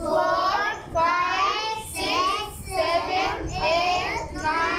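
Young children's voices chanting numbers aloud in a sing-song, about one number a second, counting sticks one by one.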